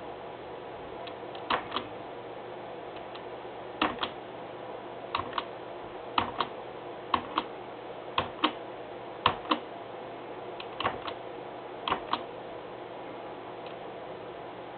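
Light clicks coming in pairs, about nine pairs spaced a second or so apart, each pair's two clicks close together, over a faint steady hum.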